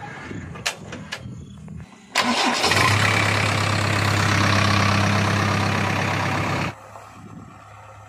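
JCB 3DX backhoe loader's diesel engine heard close up at the engine bay: about two seconds in it is cranked and catches, then runs loud and steady. Near the end the sound drops abruptly to a quieter, steady engine hum.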